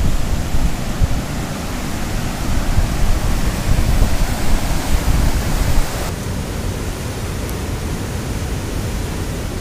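Waterfall and rapids rushing: a loud, steady roar of whitewater close by. About six seconds in the rush becomes a little quieter and duller.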